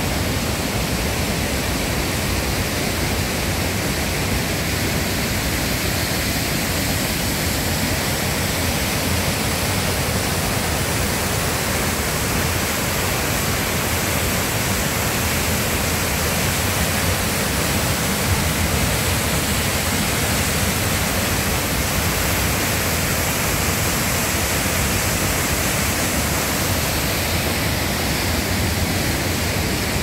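Waterfall and mountain stream: a steady, even rush of water pouring over rocks into a pool.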